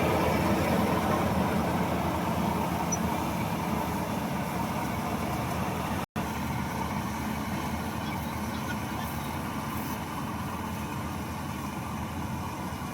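GAM rice combine harvester running, its engine and cutting and threshing machinery making a continuous steady drone that eases slightly in level. The sound cuts out for an instant about six seconds in.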